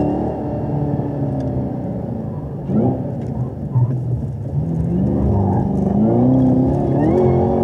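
Chevrolet Corvette V8 heard from inside the car, the engine note falling as it slows hard, a quick rise in revs about three seconds in as it shifts down to first, then climbing steadily in pitch as it accelerates out of a tight turn.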